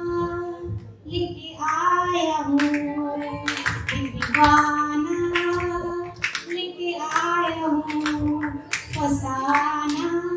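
A woman singing a song into a handheld microphone, in long held phrases that step slowly up and down, with a few sharp hand claps among the phrases.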